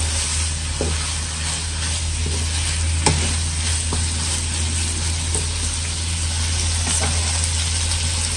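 Chop suey vegetables and chicken sizzling in oil in a nonstick wok while being stirred with a wooden spatula, with a few light knocks and scrapes of the spatula against the pan. A steady low hum runs underneath.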